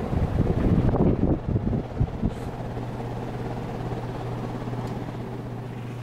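Montgomery Ward (Evergo) ceiling fan running, its draft buffeting the microphone for about the first two seconds, then a steady low motor hum.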